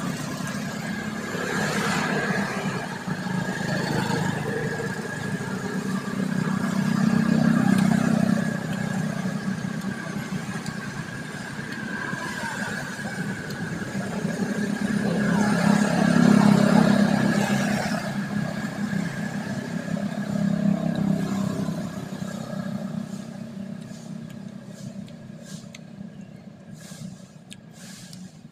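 Engines of passing motor vehicles, small motorbikes and a tuk-tuk-type vehicle, swelling and fading several times as each goes by. A steady high tone runs underneath.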